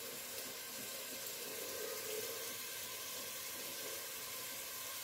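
Chopped onion and carrot sautéing in oil in a pot on the stove, a steady sizzle.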